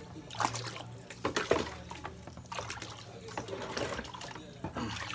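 Water sloshing and splashing in a plastic basin, in short irregular splashes.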